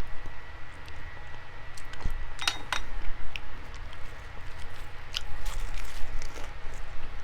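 A person chewing and eating food, with small mouth and utensil clicks and two sharp clinks about two and a half seconds in.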